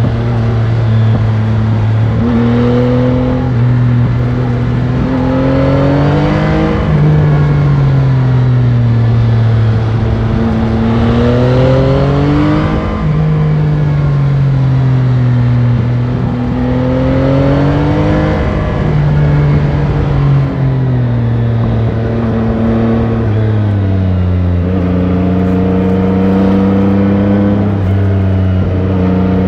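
Yamaha Tracer 9 GT's 890 cc CP3 inline-three engine through its stock exhaust, heard onboard while riding: the revs climb and drop off several times, with sudden steps down in pitch, and settle lower near the end.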